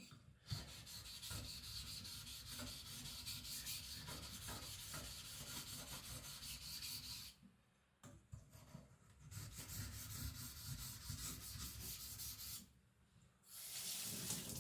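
Carbon-steel knife blade being ground back and forth on a whetstone, a steady gritty rasping: the flats of the blade are being cleaned up on a coarse stone. Two long runs of strokes, each broken by a brief pause, with a third run starting near the end.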